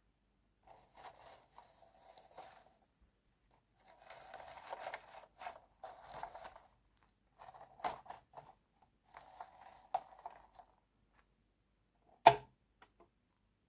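Small plastic toy kitchen pieces and packaging being handled: bursts of rustling and light clattering, with one sharp click a little after twelve seconds in.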